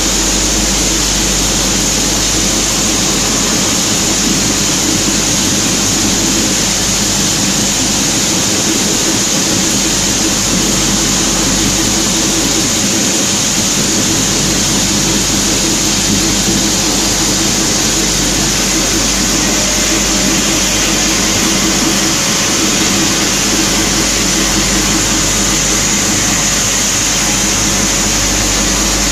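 Machinery of a waste-plastic PP/PE separating line running continuously, a steady mechanical drone with a strong high hiss and no change in level.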